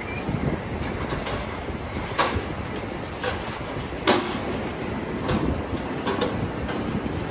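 Steel cattle crush and headgate clanking and rattling as the restrained cow shifts, with sharp metal knocks about two seconds in and the loudest about four seconds in, over a steady background rumble.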